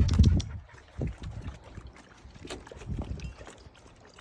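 Springer spaniels moving about, with a few low thumps and scattered light clicks.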